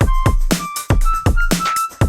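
Background electronic music with a steady drum-machine beat: a deep kick about twice a second, sharp hits between, and short high synth notes.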